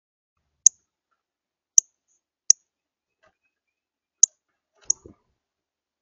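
Five short, sharp, high-pitched chip notes, unevenly spaced over about four seconds, typical of a northern cardinal's chip call. A faint low thud follows the last one.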